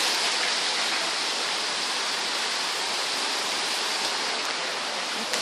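Heavy rain pouring down onto a flooded yard and porch, a steady rushing hiss of falling and running water.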